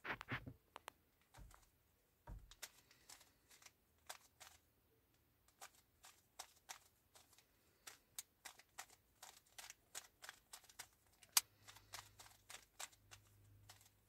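Plastic 3x3 speed cube being turned by hand: a run of quick, irregular clicks as its layers are twisted. One sharper click comes about three-quarters of the way in.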